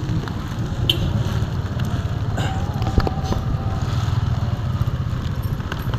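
Motorcycle engine running in traffic, a steady low rumble, with a couple of brief sharp clicks.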